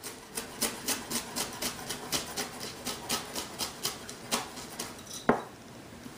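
Chef's knife chopping fresh mint and coriander on a cutting board, about four quick strokes a second, then one louder knock about five seconds in.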